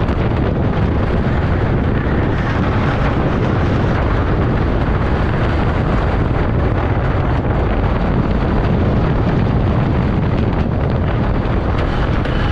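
CCI wooden roller coaster train running at speed over its wooden track: a loud, steady rumble with many rattling clacks from the wheels, and heavy wind on the microphone.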